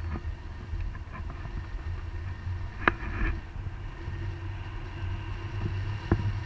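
Wind rushing over the microphone of a pole-held camera in paraglider flight: a steady low rumble, with a few sharp clicks and knocks, the loudest about three seconds in.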